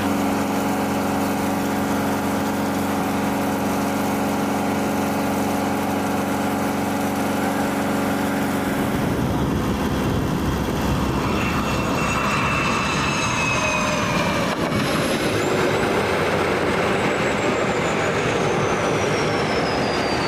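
An engine runs steadily with a low hum for the first half. About nine seconds in it gives way to the roar of an F-18 Super Hornet's jet engines as the jet rolls down the runway, with whining tones falling in pitch, one high whine sliding steadily lower near the end.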